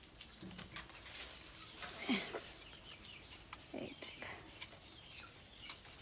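Quiet outdoor background with a few faint, short bird chirps and brief distant voice sounds, the loudest about two seconds in.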